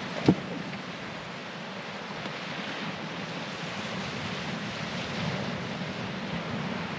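Small waves washing onto a pebble shore, mixed with wind buffeting the microphone, a steady rushing noise. A single sharp knock sounds just after the start.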